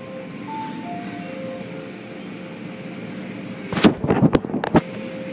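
Automatic car wash heard from inside the car: a steady wash of machinery and water noise, then about four seconds in a quick cluster of loud hits as water or wash equipment strikes the car body. Faint music with a simple stepping melody plays underneath.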